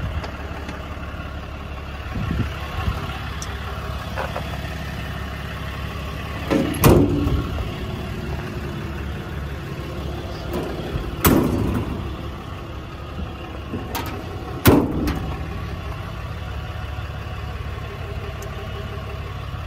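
Ram 5500's 6.7 Cummins diesel idling steadily, with four sharp metal clunks of doors and latches on the truck, spaced a few seconds apart.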